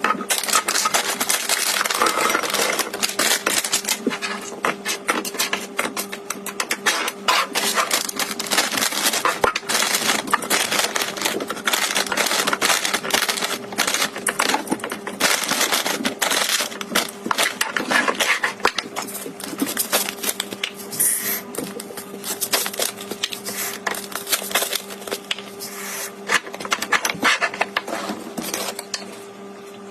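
Dense, rapid clicking and rustling of groceries, packaging and containers being handled, over a steady low hum.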